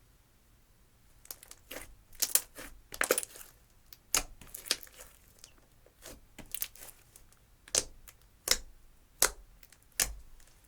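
Clear slime tinted with eyeshadow being pressed and folded by hand, giving a string of sharp crackling pops as trapped air bursts. The pops start about a second in and come irregularly, then settle to one roughly every 0.7 s near the end.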